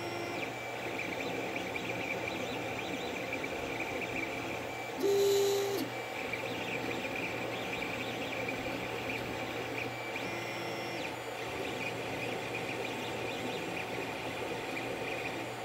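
Creality CR-10 3D printer running mid-print: a steady fan hum with the stepper motors whining in short, even-pitched tones as the head moves. A louder whine lasting about a second comes about five seconds in.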